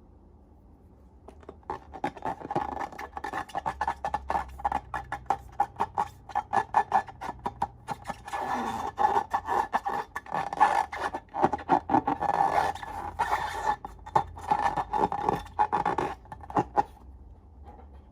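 Slime being squeezed and worked by hand, a dense run of crackling clicks and squelches over a steady squeaky tone, starting about a second in and stopping near the end.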